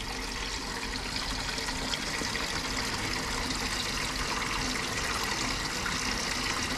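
Water running steadily and trickling into the stainless-steel bowl of a horse waterer as it refills.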